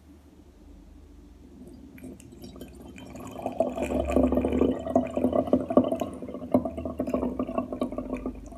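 Banana-skin syrup poured through a sieve and funnel into a glass bottle, trickling and splashing as the bottle fills. It starts faint and grows louder about three seconds in.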